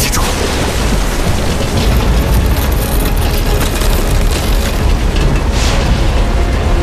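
Animated sound effect of blue magic flame and energy surging around a metal alchemy cauldron: a loud, continuous deep rumble with a sharp whoosh right at the start and another about five and a half seconds in, under background music.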